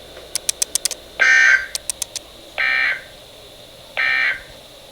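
Emergency Alert System end-of-message signal: three identical short bursts of buzzy two-tone digital data, about a third of a second each and about 1.4 seconds apart, marking the end of the alert. A quick run of sharp clicks comes in the first second, with a few more around two seconds in.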